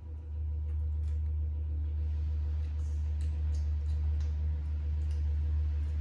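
A steady low hum, with faint scattered clicks and smacks of a macaque monkey chewing mango slices.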